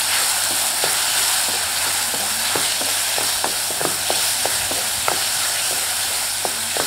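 Chopped tomatoes, onion and green chillies sizzling in hot oil in a metal pan, stirred with a wooden spatula that knocks and scrapes against the pan in scattered short clicks over a steady hiss.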